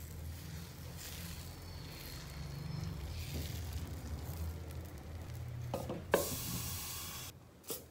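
Dosa batter sizzling faintly on a hot nonstick pan as it is spread with a ladle. About six seconds in a glass lid is set on the pan with a clack, followed by a brief louder hiss that cuts off suddenly.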